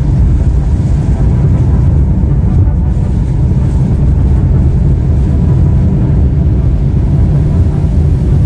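Steady low rumble of a car driving along, heard from inside the cabin: road and engine noise.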